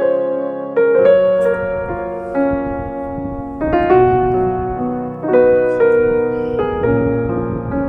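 Background piano music: slow chords struck about once a second or so, each left to ring and fade.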